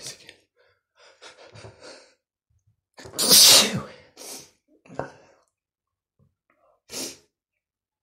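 A man sneezes once, loudly and forcefully, about three seconds in, after a few short catching breaths. Short breaths follow.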